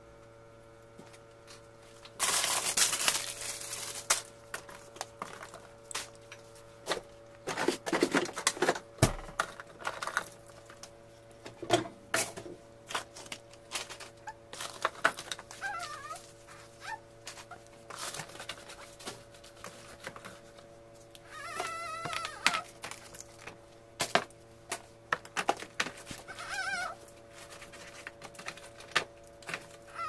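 Groceries being handled in an open fridge's door shelves: plastic bags rustling, loudest about two seconds in, and jars and plastic containers clicking and knocking, over a steady hum.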